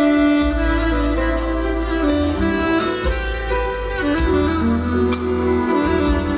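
Live smooth-jazz band: a soprano saxophone melody held over bass and drums, with regular cymbal strokes.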